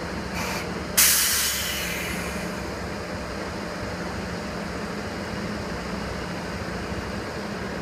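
JR Freight EF66 electric locomotive starting a freight train. A short hiss, then a sudden loud burst of compressed-air hiss about a second in that fades over a second or so, over the locomotive's steady low hum as it moves off.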